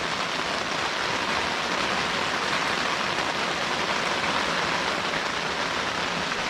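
Steady rain falling on a tent, an even, dense patter that does not let up.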